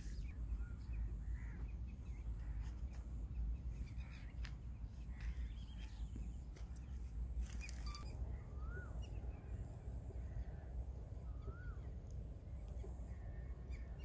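Outdoor rural ambience: a steady low rumble with a thin, high steady hum above it, a few short rising-and-falling bird calls, and scattered light clicks.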